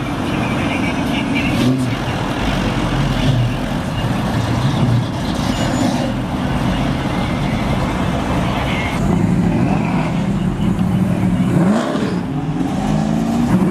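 V8 engines of classic Chevrolet muscle cars rumbling as they pull slowly away one after another. One engine revs up, rising in pitch, near the end.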